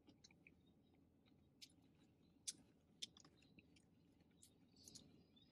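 Faint close-up chewing of fried chicken, with scattered small wet mouth clicks; two sharper clicks come about two and a half and three seconds in.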